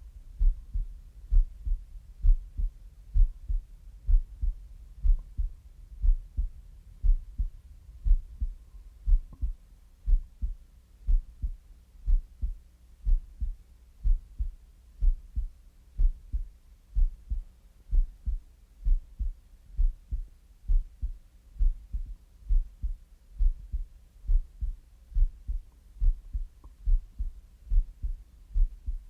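Slow, steady heartbeat, deep and low, each beat a paired lub-dub, about one beat a second.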